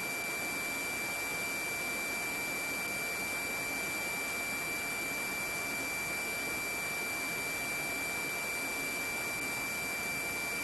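Steady hiss of the police radio audio feed with a thin, high-pitched steady tone over it, unchanging throughout.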